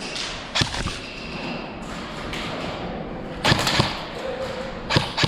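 Several sharp cracks and thuds at uneven spacing: two close together within the first second, another pair a little past three seconds in, and one more near the end, over steady background noise.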